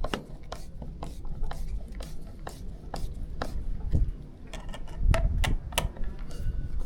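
Hand screwdriver turning the mounting screws of a keypad lock's inside plate, with sharp clicks about twice a second and some low handling rumble about two-thirds of the way through.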